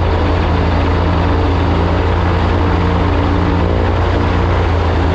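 Rotax 912 engine of a powered hang-glider trike running steadily with its pusher propeller turning, loud and close to the microphone mounted on the aircraft.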